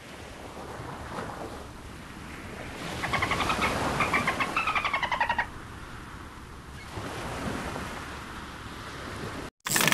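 A steady rushing noise, with a creaky, rapidly pulsed animal call rising and falling in pitch from about three seconds in to about five and a half seconds in. The sound stops suddenly just before the end.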